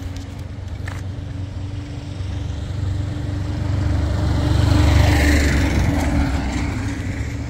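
A small Tata pickup truck drives past on an asphalt road. Its engine and tyre noise grow louder to a peak about five seconds in, then fade as it moves away.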